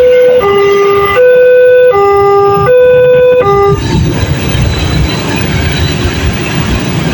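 Railway level-crossing warning siren of the Multec type, a fast two-tone hi-lo alternation with each tone lasting under a second, which cuts off about three and a half seconds in. A dense low noise with no clear tone follows.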